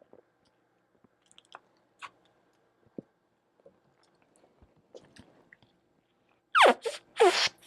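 Faint swallowing and mouth clicks from swigs of carbonated soda. Near the end come three short, loud, squeaky sounds that fall steeply in pitch.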